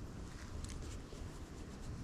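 Faint rustling and scratching of a dog rolling on the forest floor, with a few light clicks, over a low steady rumble.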